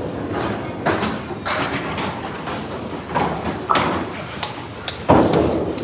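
Candlepin bowling alley noise: balls and pins knocking and thudding in a series of sudden impacts over the steady din of the lanes, the loudest about five seconds in.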